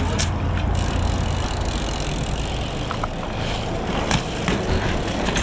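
BMX bike being ridden: tyres rolling on hard ground under a steady low rumble, with a few sharp clicks and knocks.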